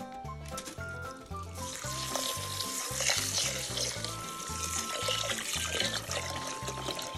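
Tap water pouring into a rice cooker's inner pot onto rice and mixed grains, starting about two seconds in, over background music with a steady beat.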